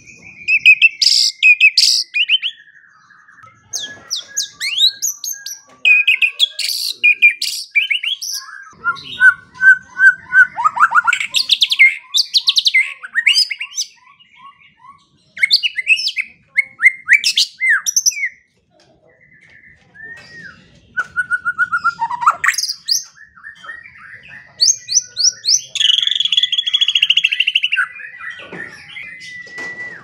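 White-rumped shama singing a loud, varied song of quick whistled phrases, rapid trills and runs of repeated notes, with a buzzy chattering rattle near the end.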